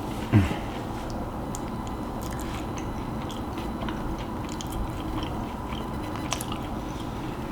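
A person chewing and biting food close to the microphone, with small crunches and wet mouth clicks scattered through. One louder, short low sound comes about half a second in.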